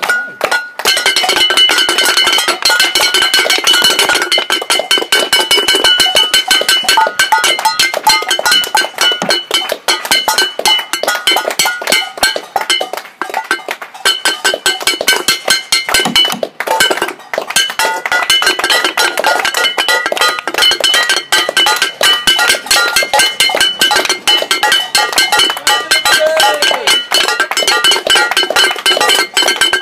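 A metal pan struck rapidly and continuously, a fast run of clanging hits with a bright metallic ring held between them, briefly broken about two-thirds of the way through.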